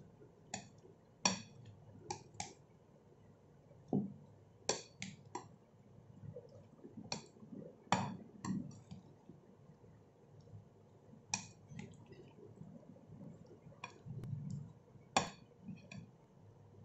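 A spoon stirring and folding sauce-coated chopped fruit in a glass bowl. It gives irregular sharp clinks against the glass about once a second, over the soft wet sound of the fruit pieces being turned.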